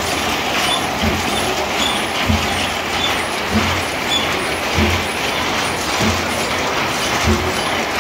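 Mechanised sedge-mat weaving loom running: a continuous clatter of gears and linkages, with a low thud about every second and a quarter in its working cycle.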